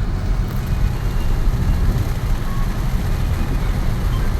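Steady low rumble of a car driving, with a fainter even hiss above it, as heard from inside the moving vehicle in heavy rain.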